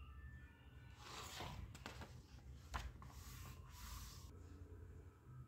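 Faint rustling and brushing handling sounds with two light clicks, the sharper one near the middle.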